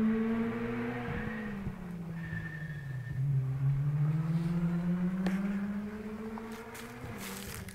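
Ford Fiesta R2 rally car's engine heard from a distance. The revs hold, drop away about a second in, then climb steadily over the next few seconds as the car pulls on again.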